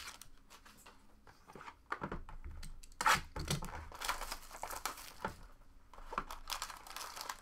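Plastic shrink wrap being torn and crinkled by hand in irregular bursts, opening a sealed trading-card box.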